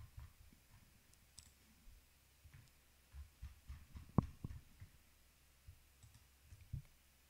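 Quiet computer mouse clicks and soft low knocks, scattered through, with the sharpest click about four seconds in.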